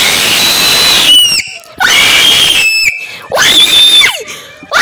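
Children screaming in fright: three long, high-pitched screams, each about a second long, with short breaks between them.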